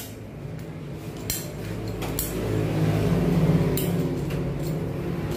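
Ratcheting PVC pipe cutter being squeezed through orange PVC conduit: a few sharp clicks, and a louder low crunching stretch in the middle as the blade works into the plastic.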